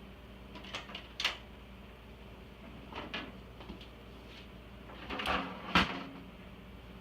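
Scattered clicks and knocks of hard plastic parts being handled and pried, the loudest pair about five to six seconds in, as an iMac G3's speakers are worked at to get them loose.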